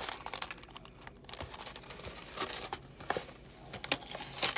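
Cardboard box of a microwave poutine meal being handled and opened: rustling and crinkling of the carton and its packaging, with scattered clicks and a louder crackle near the end as the tray is pulled out.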